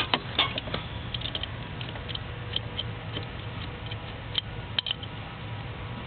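Small irregular clicks and taps from hands and tools working on stripped wire ends, most of them in the first second and another pair near the end, over a steady low hum.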